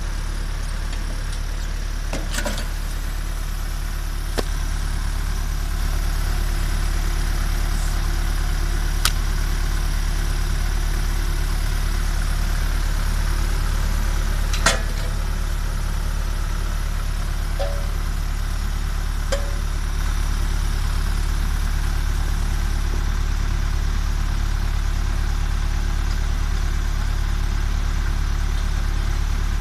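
MTZ 552E tractor's diesel engine running steadily, driving the POSCH HydroCombi 22 log splitter's hydraulic pump. A few sharp knocks from wood and splitter parts come through now and then, the loudest about halfway through.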